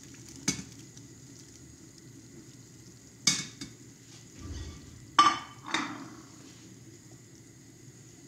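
A stainless steel pot of vegetables at a boil, bubbling steadily, while a wooden spoon and bowl knock sharply against the pot about four times as floured meatballs are pushed in; the loudest knock, a little past the middle, rings briefly.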